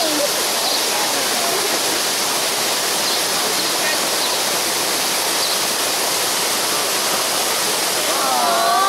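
Steady rushing of falling water, like a waterfall or fountain, with faint voices rising in over it near the end.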